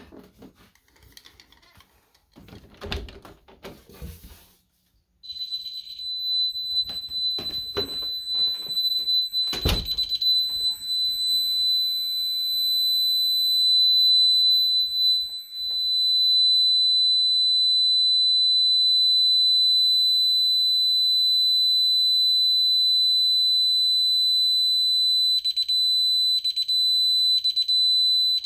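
DSC alarm keypad's buzzer sounding a steady high-pitched entry-delay tone while the system is armed and waiting for the code, switching to beeps about once a second near the end as the delay runs down. Before the tone starts there are a few handling knocks, and a sharp thump comes a few seconds after it begins.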